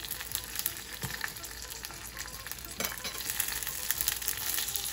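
Tadka: mustard seeds and a dried red chili sizzling and crackling in a little hot oil in a small cast-iron kadai, as curry leaves go in. A steady hiss with many small pops, and a brighter crackle about three seconds in.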